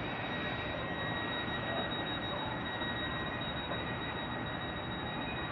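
A train standing at the platform with its engines and equipment running: a steady rumbling hum with a high, steady whine over it.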